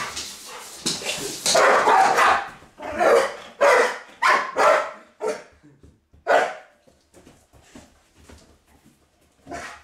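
Pit bull barking: a quick run of loud, short barks over the first six seconds or so, then it goes quieter.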